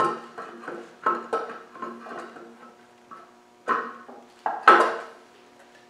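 A cast metal engine cover knocking and clanking against the engine as it is offered up and positioned, with a metallic ring after each knock. About six clanks, the loudest ones about four and a half seconds in.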